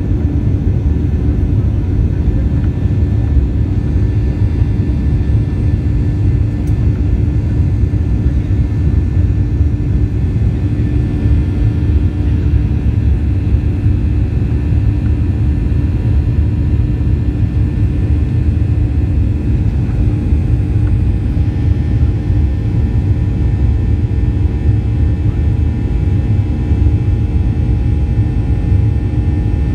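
Boeing 737's jet engines running at high thrust with rushing airflow, heard inside the cabin as the airliner lifts off and climbs: a steady, loud, low rumble with a faint steady hum on top.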